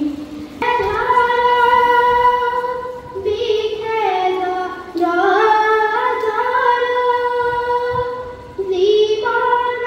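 A boy singing solo into a microphone, unaccompanied, in long held notes with gliding slides between them. He pauses briefly for breath about three seconds, five seconds and eight and a half seconds in.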